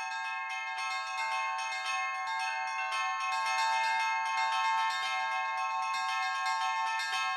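Church bells ringing a rapid peal: many small, high bells struck in quick succession, their tones ringing on and overlapping.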